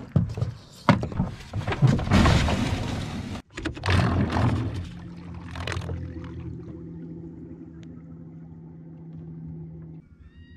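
Knocks and rushing, splashy noise around a small boat for the first few seconds, then from about halfway a steady hum of the boat's battery-powered electric outboard motor running.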